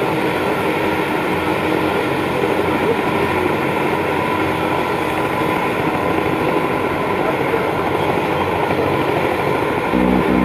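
Helicopter's turbine engine and rotor running on the ground: an even rushing noise with a faint steady whine.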